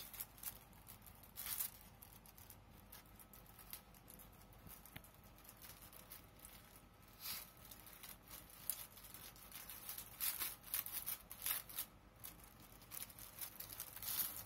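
Faint rustling and tearing as a pack of cards is opened and the cards handled, in scattered short crackles that grow busier toward the end.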